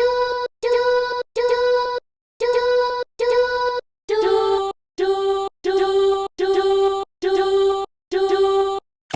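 A voice chanting one syllable over and over, about a dozen short held notes at an even pace with silence between them. The pitch drops to a lower note about four seconds in and stays there.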